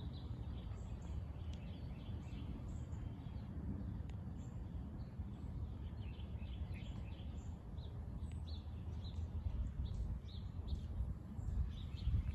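Small birds chirping here and there, many short high calls, over a steady low rumble.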